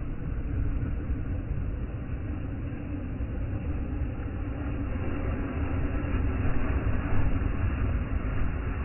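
Small lake waves breaking and washing up a sandy shore, over a heavy low rumble of wind. The wash swells louder a little past halfway.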